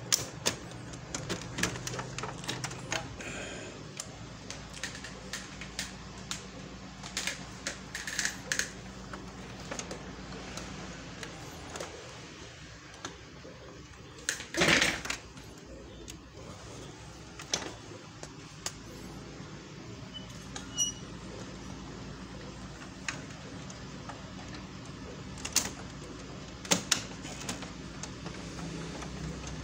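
Hands handling the drum units inside a colour laser printer: scattered light plastic clicks and knocks, with one louder scraping rustle about halfway through, over a steady low hum.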